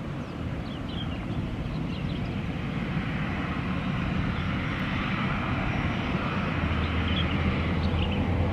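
Jet engines of a Boeing 737-500 running, a steady roar that grows gradually louder, with a low hum coming in near the end.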